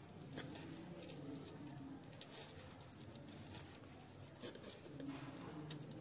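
Faint rustling and small ticks of yarn and a crochet hook being worked through stitches, with a sharper click shortly after the start and another about four and a half seconds in.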